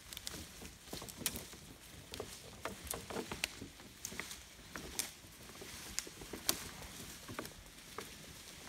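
Highland cattle browsing on felled alder branches: irregular rustling of leaves and sharp snaps and cracks of twigs as they tear off leaves and shift the branches.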